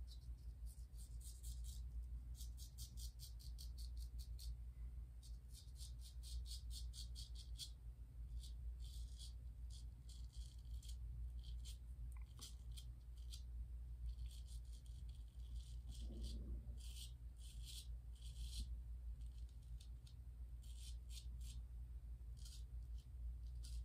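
Gold Dollar 208 straight razor scraping through lathered stubble on the neck and chin, in short runs of rapid crackling strokes with brief pauses between them.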